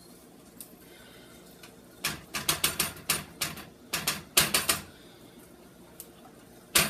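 A kitchen utensil scraping and knocking against a dish in a quick run of sharp clicks, starting about two seconds in and lasting about three seconds, with one sharp knock at the very end.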